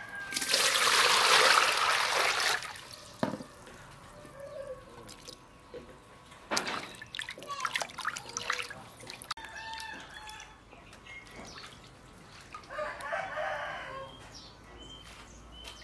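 Water pours into an aluminium basin for about two seconds, then hands splash and rub blocks of tofu in the water, with scattered drips and knocks of the metal basin. A rooster crows once in the background about thirteen seconds in.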